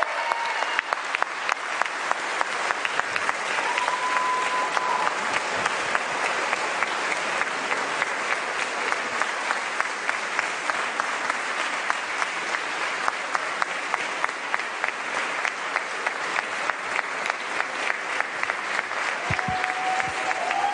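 Large crowd applauding, the clapping falling into a steady rhythmic beat of about two to three claps a second.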